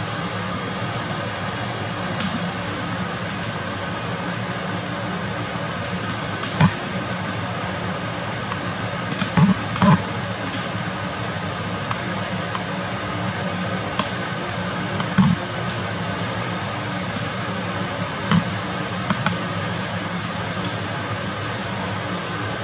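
Scallops searing in hot, bubbling fat in a nonstick frying pan: a steady sizzle, with a few short, louder pops and spits scattered through it.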